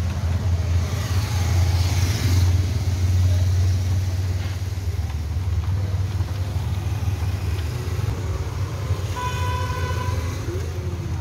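Street traffic rumbling steadily, with a vehicle passing about a second or two in and a short single horn toot near the end.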